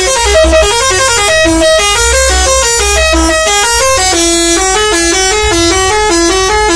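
A bus's telolet horn, a multi-trumpet musical air horn, playing a fast tune of short notes stepping up and down without a break. A low rumble comes and goes underneath.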